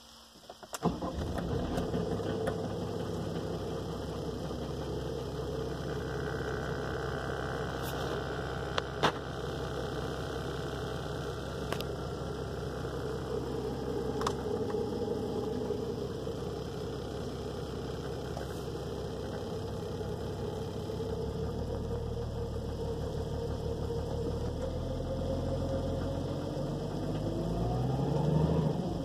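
Mercedes W140 300SD's 3.5-litre turbodiesel inline-six comes in suddenly about a second in and runs steadily at idle, heard from inside the cabin, its pitch settling slightly lower past the middle. A few sharp clicks of climate-control buttons come in the middle, and near the end the engine is briefly revved, its pitch rising.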